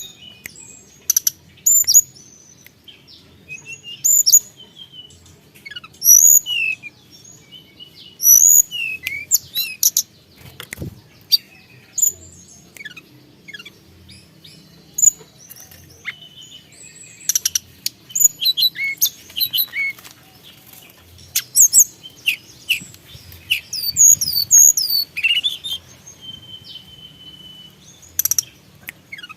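Tledekan gunung songbird singing in rapid, varied phrases of sharp chirps and quick sweeping whistles, broken by short pauses, with one brief steady whistled note near the end.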